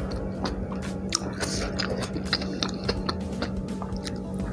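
Close-miked chewing of a mouthful of food, with many short, irregular wet clicks and smacks.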